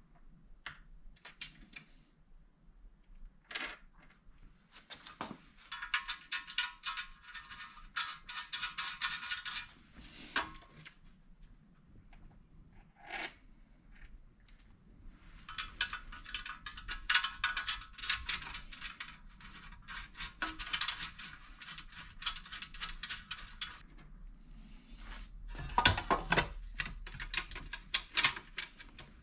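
Rapid metallic clicking of a ratchet wrench driving the small bolts of a heat guard onto a slip-on exhaust muffler. It comes in three runs of several seconds each, with a few single taps and knocks of metal parts between them.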